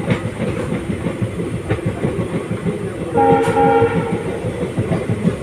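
A train running along the track with a steady clattering rumble; about three seconds in, the train's horn sounds once for just under a second.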